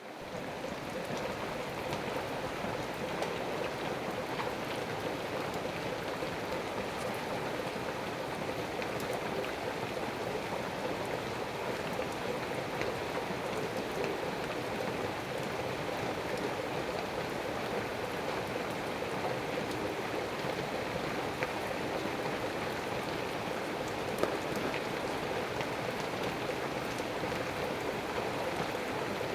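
Steady rain falling, with occasional faint ticks of drops dripping from wet leaves.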